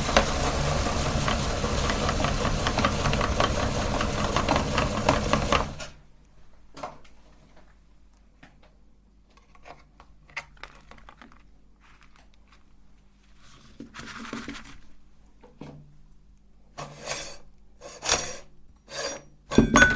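Electric meat grinder running with a steady motor drone, then cut off abruptly about six seconds in. Scattered light clicks and knocks follow, a few of them louder near the end.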